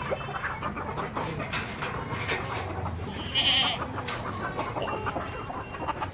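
A goat bleats once, briefly, about three and a half seconds in, over scattered clucking from chickens.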